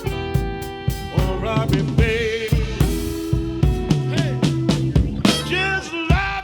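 Blues band playing live: a drum kit keeping a steady beat under bass and sustained, wavering melody notes.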